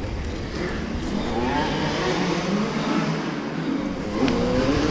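Four-stroke 250 cc single-cylinder dirt bike engine running with its revs rising and falling unevenly, a little louder about four seconds in.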